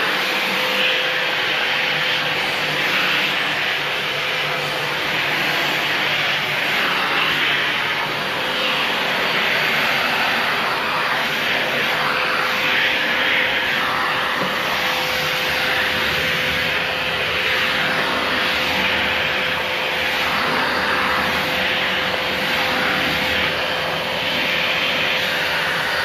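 FCM Soteco commercial vacuum cleaner running steadily as its hard-floor tool is pushed across laminate flooring: a continuous rushing hiss of suction with a thin steady whine underneath.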